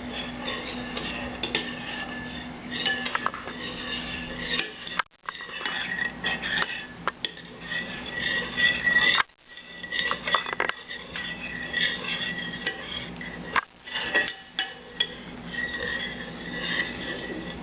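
A spoon stirring glue and water in a bowl, scraping and clinking against the bowl, mixing the base for slime. It stops briefly three times.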